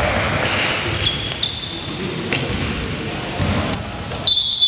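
Dodgeball play in a large hall: balls bouncing and thudding on the court, short high squeaks, and players' voices. A sharp, loud high tone comes near the end.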